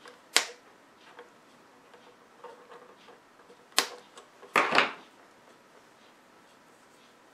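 Sharp clicks and a brief clatter of small hand tools and parts being handled on a workbench: one click about half a second in, another near four seconds, and a short cluster of clicks just before five seconds.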